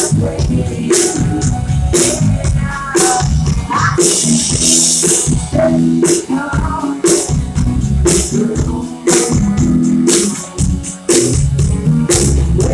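Live band playing a song, with a drum kit keeping a strong beat about once a second, a cymbal crash about four seconds in, electric guitar and bass guitar, and a woman singing lead.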